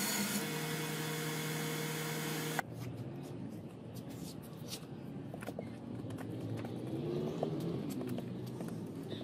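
Small electric scroll saw motor humming steadily, cut off abruptly about two and a half seconds in. Then faint rustling and small clicks of hands working moulding sand in a wooden box, with a low hum swelling and fading in the background.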